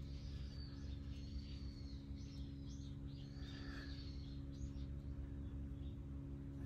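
Small birds chirping, a string of short high calls, over a steady low hum.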